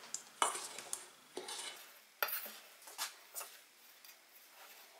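Metal spoon stirring dry flour in a stainless steel bowl, scraping and clinking against the bowl in several short strokes.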